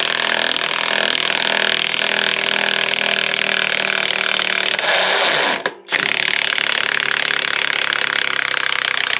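Cordless Craftsman V20 high torque impact wrench hammering in reverse, backing a long 8-inch lag bolt out of wood. The hammering is continuous, with a brief stop about six seconds in before it picks up again.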